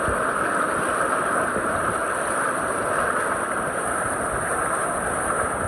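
Steady rush of water churned up in the wake of a motorboat moving at speed, with wind noise.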